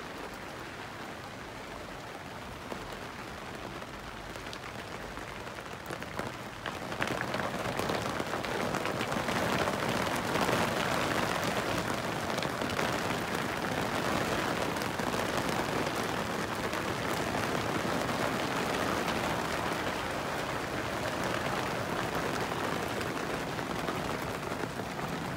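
Rain falling on a canvas wigwam cover, heard from inside: a steady hiss of drops with faint patters that grows louder about seven seconds in.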